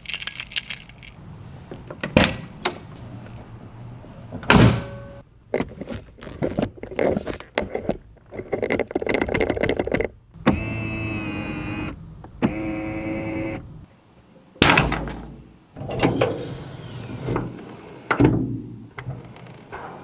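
Handling sounds on a 1986 Porsche 911 Turbo: keys jangling and a string of sharp clicks and thunks from doors and latches, with two steady pitched tones of about a second and a half each around the middle.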